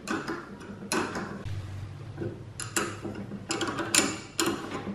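Open-end spanner turning steel nuts down on long M8 bolts to compress a spring-loaded cylinder flange, with irregular metallic clicks and clinks of the spanner on the nuts.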